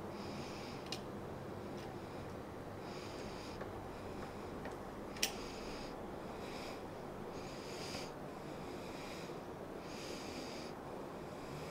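A person breathing close to the microphone, each breath coming about every one to one and a half seconds, with a few faint clicks from the lathe's carriage handwheel and cross-slide crank being turned by hand, and one sharp metallic click about five seconds in.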